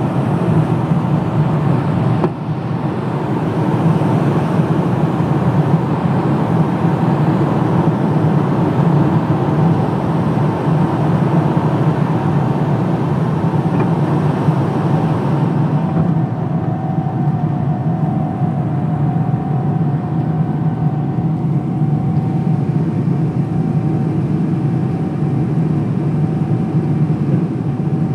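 Jet airliner's engines and rushing air heard from inside the cabin during climb-out after takeoff: a loud, steady, deep drone with a faint steady hum on top. The high hiss eases a little about halfway through.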